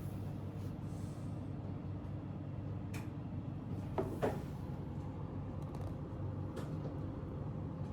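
Quiet, steady low hum of a Fellowes Spectra A4 pouch laminator feeding a pouch through its rollers, blended with air-conditioner hum. A few light clicks, two close together about four seconds in.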